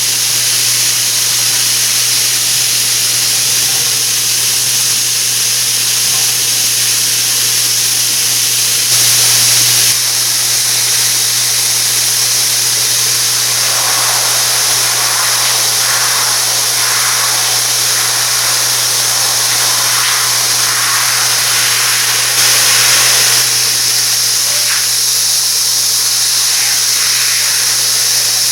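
A high-pressure rain shower head spraying water in a steady, loud hiss, briefly louder twice, around nine seconds in and again near twenty-two seconds.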